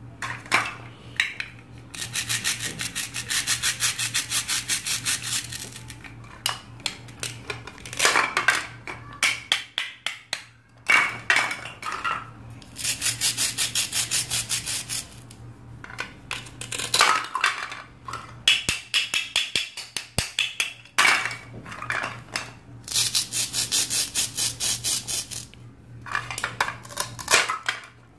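Velcro seams of plastic toy fruit and vegetable pieces being pulled apart: several long, rapid rasping rips, each lasting one to a few seconds, with light clacks of hard plastic pieces in between.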